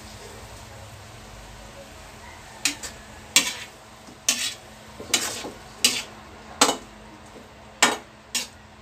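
Long metal ladle scraping and clanking against a metal wok while stir-frying. A quiet first two and a half seconds are followed by about eight sharp clanks.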